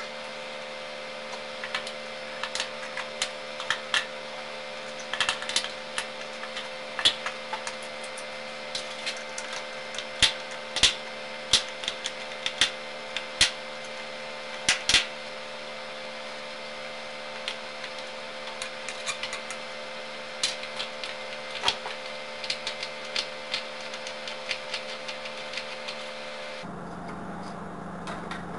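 Irregular clicks and knocks of wooden boards and hand tools as a wooden mould frame is worked loose from cured silicone. A steady hum runs underneath and stops about two seconds before the end.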